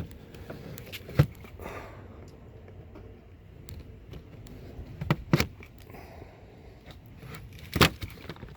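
Plastic dash trim and parts being handled: scattered sharp clicks and knocks, one about a second in, two close together about five seconds in, and the loudest near the end.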